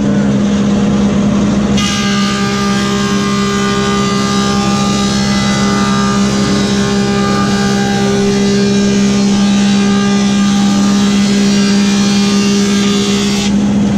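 Woodmaster 725 planer with a helical cutterhead planing a hardwood board. From about two seconds in until near the end, the loud, higher-pitched cutting sound with several steady tones rides over a steady low hum, then drops away as the board clears the head.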